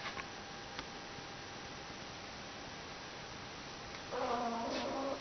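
Pug snoring: one pitched, buzzing snore lasting about a second, starting about four seconds in, ending in a short breathy snort, with faint snuffles before it.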